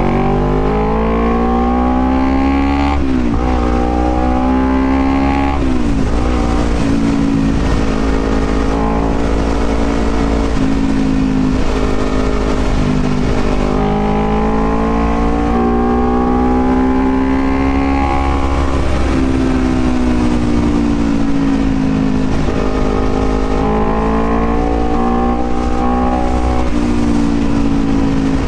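Honda CBR250RR motorcycle engine under way: it revs up and drops sharply twice in the first few seconds as gears are shifted up, then runs on with the revs rising and easing off.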